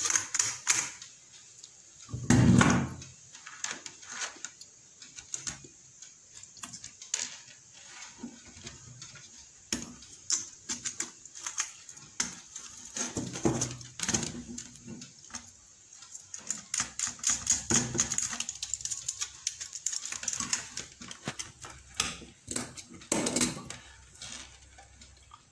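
Plastic clicks and taps of a modular electrical switch being handled and pressed into its place on a switch board, with a few louder thumps about two seconds in and near the end.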